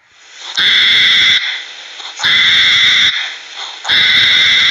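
Hedgehog giving three loud, harsh calls, each just under a second long and about a second and a half apart.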